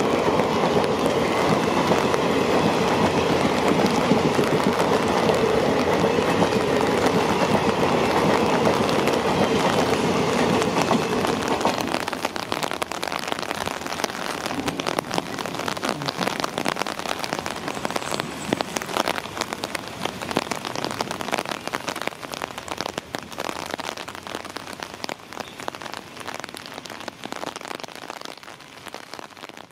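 Indian Railways express passenger coaches rolling past on wet track in the rain. About twelve seconds in, the rumble drops suddenly to rain pattering, with the train's sound fading away into the distance.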